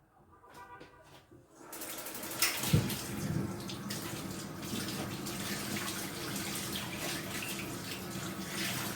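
Kitchen tap turned on about two seconds in, water running steadily into the sink, with a knock just after it starts.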